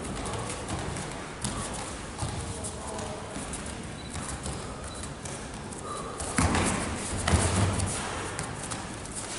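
Bare feet shuffling and thudding on foam floor mats during karate sparring, with scattered light knocks and two louder thumps about six and a half and seven and a half seconds in.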